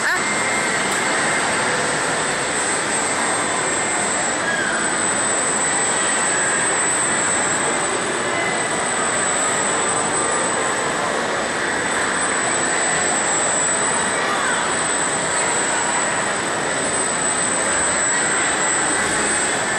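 Steady, even din of a large indoor amusement arcade while a robot-arm ride swings its rider, with a thin constant high whine over it.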